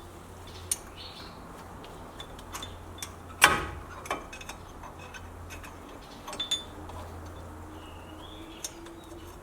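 Metallic clicks and clinks of parking brake shoe hardware (return springs and shoes) being worked into place on the rear brake assembly, with one louder ringing clank about three and a half seconds in.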